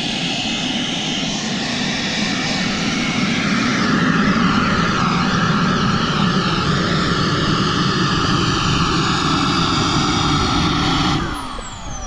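Model jet turbine (Kingtech K45G4) running with a steady roar that gets a little louder about four seconds in. Near the end the roar drops off abruptly and gives way to a falling whine.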